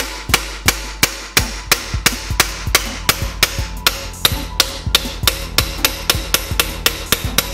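Rapid, regular hammer blows, about three a second, on a piston being driven down out of a cylinder bore of a Ford 59A flathead V8 block, with background music underneath.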